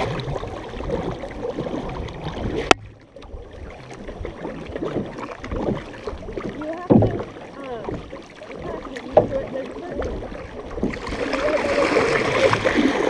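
Paddle strokes and water washing along the hull of a large canoe paddled by several people, with wind on the microphone. There is one sharp knock about three seconds in, and the water noise grows louder near the end.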